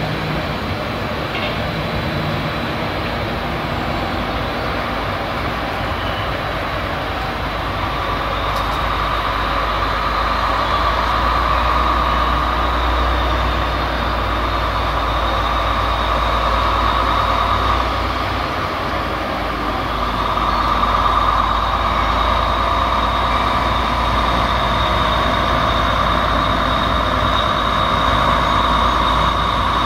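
Two diesel locomotives at the head of a freight train running as it rolls slowly closer, a steady low rumble. A steady high whine joins about eight seconds in, and the sound grows slightly louder.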